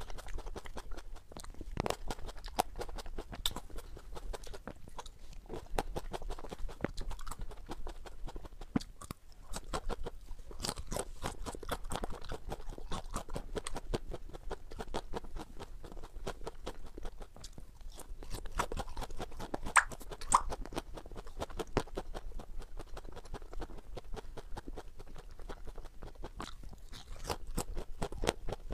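A person eating cherry tomatoes and broccoli florets close to a clip-on microphone: biting and chewing, with many crisp crunches in quick succession.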